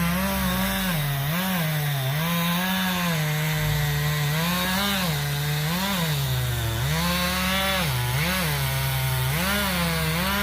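Two-stroke chainsaw cutting into a large pine trunk to fell it. The engine pitch dips and recovers again and again as the chain loads up in the cut.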